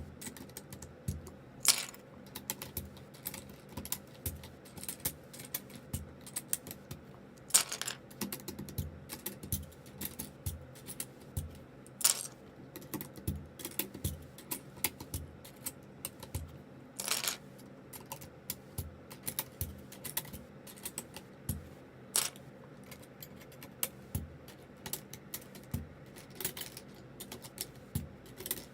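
Plastic keycaps being pulled off and pressed onto the switches of a ZZ96 keyboard: many small irregular clicks and clacks, with a louder sharp click about every five seconds.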